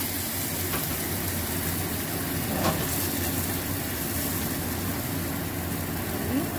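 Sauce simmering and bubbling in a small saucepan over a gas burner, under a steady low hum, with a single light knock about two and a half seconds in.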